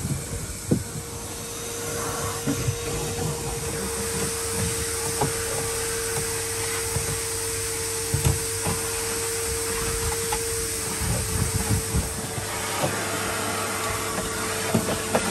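Vacuum cleaner running steadily, a steady motor whine over the rush of air through its hose. There are occasional short knocks and scrapes as the nozzle is worked along the floor edges.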